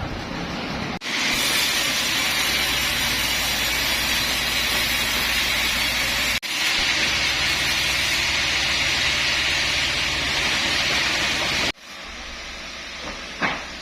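Sawmill machinery running: a loud, steady hiss over a low engine hum. The sound breaks off abruptly about a second in, again near the middle, and near the end, where it drops much quieter.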